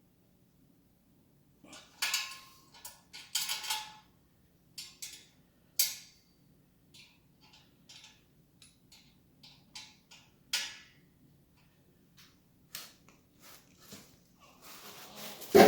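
Metal hand tools clinking and rattling on motorcycle exhaust fittings as the exhaust is tightened: irregular sharp clicks and short clatters, some with a brief metallic ring, and a louder clatter near the end.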